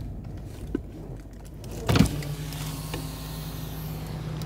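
A thump about two seconds in, then a car's electric power window motor running with a steady hum over the low rumble of the car.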